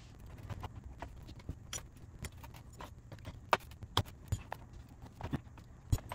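Small metal parts of an SU H1 carburetor clicking and clinking as it is taken apart by hand, with a screwdriver, on a parts tray. Irregular light taps, a few louder ones in the second half.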